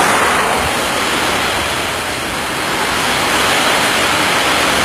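Loud, steady roar of tornado-storm wind blowing across a phone's microphone.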